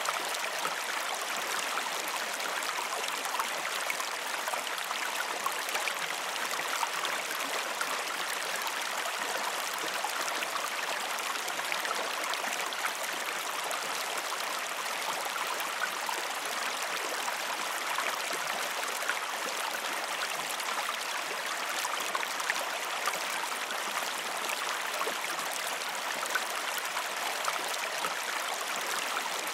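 Gentle creek water flowing steadily, an even, unbroken rush.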